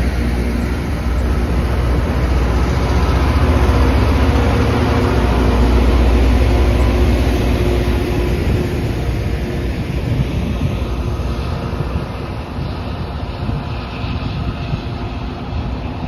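Loram production rail grinder passing close by while grinding: a loud, steady rumble of engines and steel wheels on the rail, mixed with the rasp of the grinding. It is loudest in the first half and eases off after about eight seconds as the rear car passes and the train moves away.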